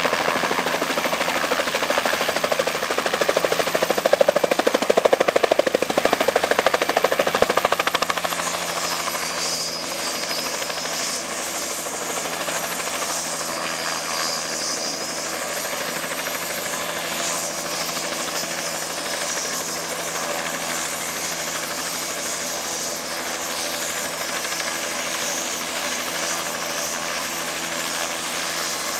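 Turbine helicopter setting down, its rotor loud and pulsing; about eight seconds in it drops to a steadier, quieter run at idle with a high turbine whine while the rotor keeps turning on the ground.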